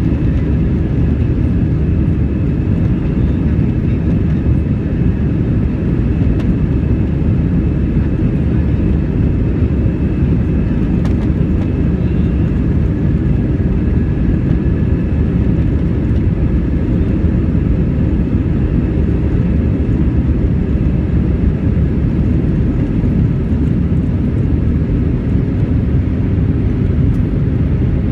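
Airbus A320 jet engines running at takeoff power: a steady, heavy rumble with a faint steady whine above it.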